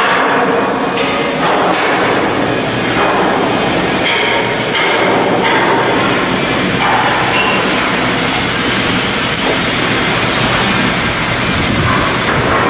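Loud, continuous shipyard work noise: heavy machinery running with metal clattering and knocking.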